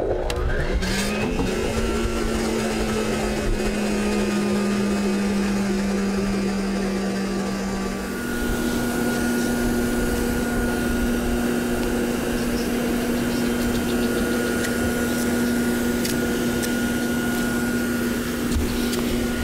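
Vacuum cleaner motor switched on: it spins up within the first second, then runs steadily with a hum and whine as it pulls a vacuum under a plastic sheet taped down over a boat-deck fiberglass repair. Its pitch steps up slightly about eight seconds in.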